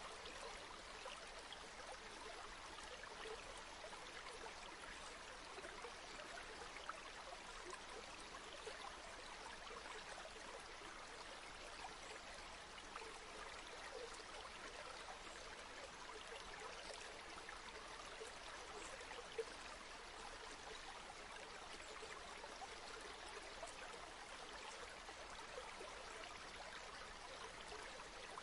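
River water flowing: a faint, steady rush with fine bubbling, and a couple of small ticks standing out about a third and two-thirds of the way through.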